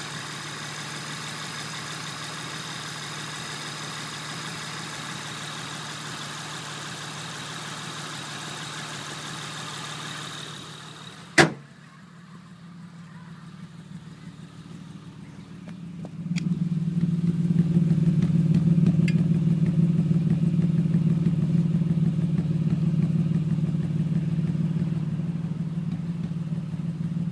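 2006 Honda Accord's V6 engine running with a misfire: a steady hum with a high whine over it. About eleven seconds in the sound drops away and there is one sharp clack. From about sixteen seconds on, a louder steady low drone comes in.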